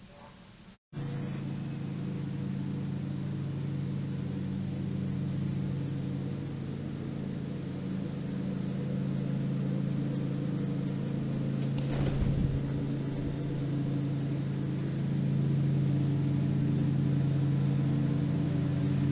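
Steady low machine hum made of several held tones, cutting in abruptly about a second in after a moment of silence and growing a little louder later on. A brief noise stands out around twelve seconds in.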